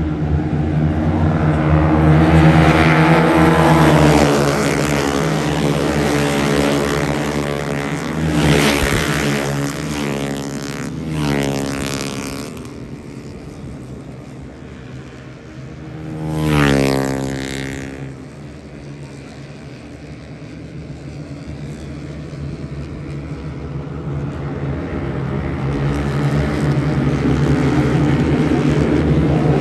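Racing motorcycles passing at speed, their high-revving engines rising and then dropping in pitch as each one goes by, several passes in turn. The sharpest pass comes a little past halfway, over a steady drone of other bikes further round the circuit.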